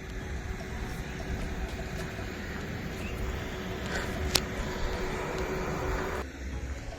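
Steady road noise of vehicle traffic, a low rumble of engines and tyres. A faint steady hum runs under it and cuts off suddenly about six seconds in, and a single sharp click comes about four seconds in.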